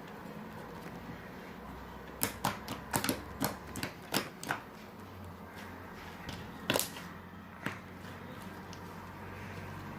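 Homemade butter slime made with light modelling clay being squeezed and worked by hand, giving a quick run of sharp clicking pops about two seconds in, then two more single pops later.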